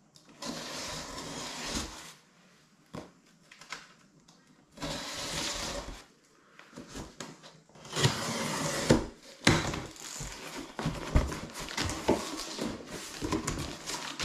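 A knife blade slicing through the packing tape on a cardboard box in three strokes of about a second each, followed by irregular scraping and clicking as the cardboard is handled.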